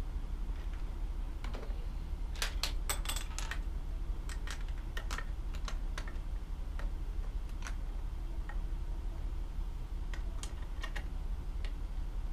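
Plastic Lego bricks clicking as they are handled and pressed together: irregular clusters of sharp little clicks, with a steady low hum underneath.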